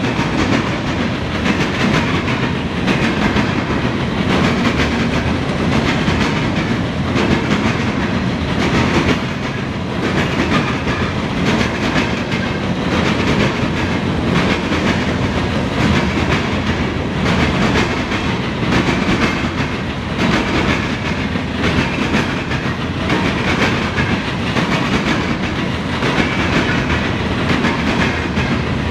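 Loaded steel-pipe gondola cars of a freight train rolling past, a loud steady rumble of steel wheels on rail with clacks as the wheels pass over the rail joints.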